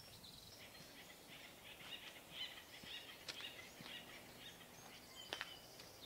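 Faint birdsong chirping over quiet outdoor ambience, with a couple of soft footfalls on a dirt trail.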